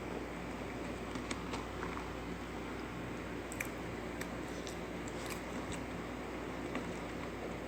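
A person chewing pizza close to the microphone: scattered small crunchy clicks of the crust and mouth sounds over a steady low background hum.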